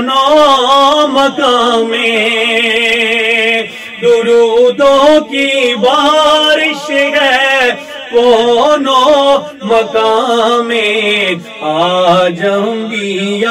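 A man singing a naat, a devotional Urdu song, solo. The melody wavers and is ornamented, with long held notes and short breaks between phrases.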